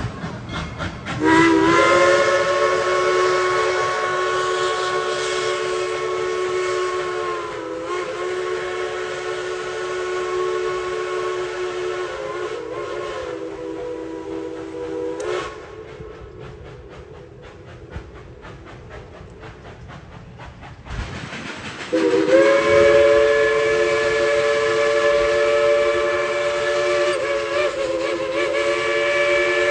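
Steam locomotive's chime whistle blown in two long blasts: a chord of several notes that slides up to pitch about a second in, wavers briefly and holds for some fourteen seconds. After a quieter stretch of running noise it sounds again about 22 seconds in and is still going at the end.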